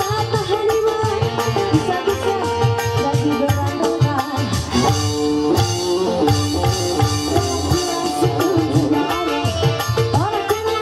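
Live dangdut band music: hand drums keep a steady beat under a stepping melody line.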